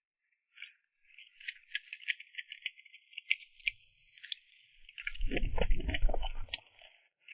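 Close-miked mouth sounds of someone eating cream cake: a run of soft, wet smacking clicks, with a louder, low throat sound lasting about a second and a half near the end.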